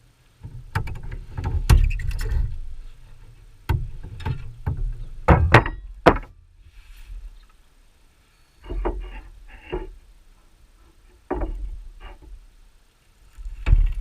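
Irregular knocks, clunks and scrapes of beehive parts being handled, as when wooden boxes, lids and frames are opened and pried apart. There is a pause of about two seconds a little before the middle.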